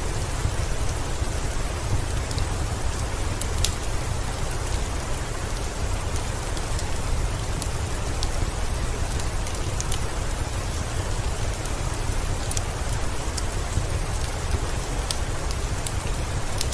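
Steady heavy rain with a deep low rumble underneath, with scattered sharp crackles from a wood fireplace mixed in.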